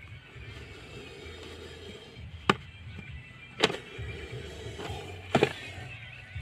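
Three sharp knocks as a large plastic bottle is handled against the ground, the last one doubled, over a steady low hum.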